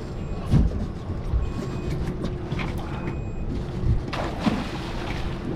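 Wind buffeting the microphone over a low rumble, with several sharp knocks and clatters from stone crab traps being handled on the skiff.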